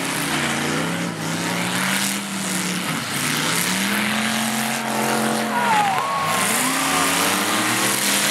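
Demolition derby cars' engines revving hard, their pitch climbing and dropping several times as they accelerate and back off, with the noise of several cars running at once.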